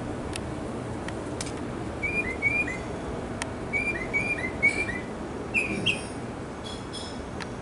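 Northern mockingbird singing: a few sharp ticks, then phrases of short slurred whistled notes repeated three or four times over, then harsher and buzzier notes near the end, over a steady background hiss.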